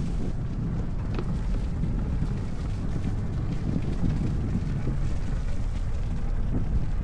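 Wind buffeting the microphone: a steady, fluttering low rumble with a thinner hiss above it.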